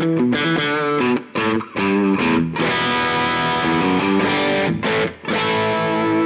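Blue Ibanez electric guitar played through a Line 6 POD X3 Live overdrive preset: a lead line of quick single notes, some with vibrato. About halfway through, one note is held for about two seconds.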